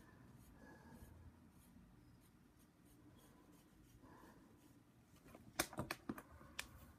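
Faint scratching of a pen drawing on a sheet of paper, then a quick cluster of sharp clicks and taps about five and a half seconds in.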